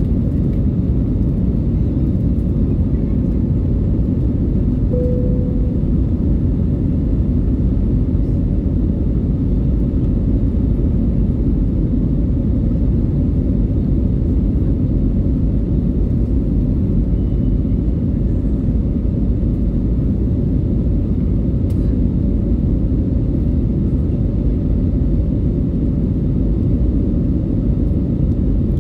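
Steady low rumble of an Airbus A320neo's engines and rushing air, heard inside the cabin during the climb after takeoff, with a short tone about five seconds in.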